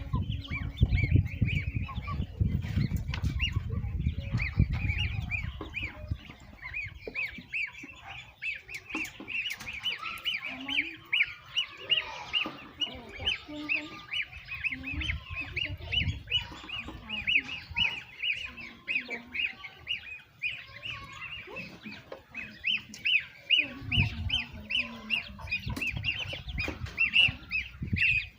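Young ducklings and goslings peeping, a dense stream of short high calls several times a second, with a few lower calls from the birds mixed in.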